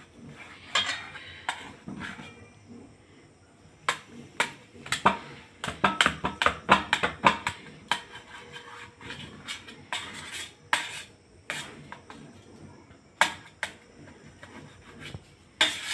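A knife clicking and tapping against a dish while cutting a steamed egg cake into pieces: irregular sharp clinks, busiest in the middle of the stretch.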